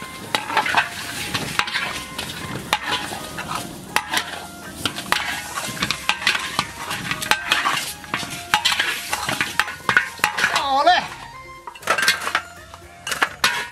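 Soft-shell turtle pieces stir-fried in a hot wok: a metal spatula scraping and knocking against the wok many times over a light sizzle. A brief wavering squeal sounds near the end.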